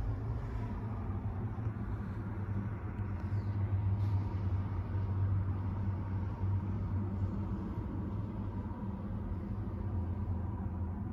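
Steady low hum inside a Nissan Pathfinder's cabin, with a faint higher tone above it.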